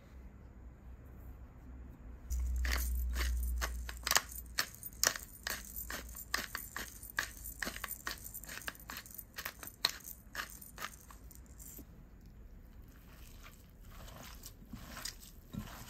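Black pepper grinder being twisted, its mill crunching peppercorns in a quick run of sharp clicks, about two to three a second, for roughly nine seconds. After it come softer, fainter squelches of hands mixing minced beef.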